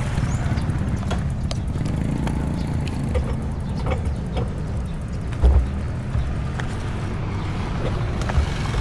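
Bicycle riding noise: a steady low rumble with scattered small clicks and rattles, and one heavier bump about five and a half seconds in.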